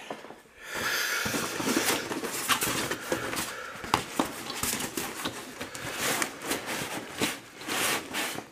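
Hands rubbing and pulling at the vinyl skin of an inflatable two-seat kayak: irregular rustling with many short scrapes and taps.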